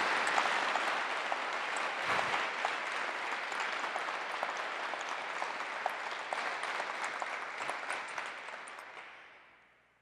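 Audience applauding: a dense mass of clapping that gradually dies away to nothing near the end.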